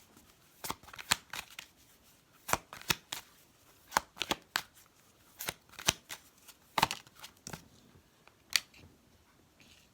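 A Keepers of the Light oracle card deck being shuffled by hand before a card is drawn: a run of short, sharp card snaps and flicks at uneven intervals, some in quick clusters.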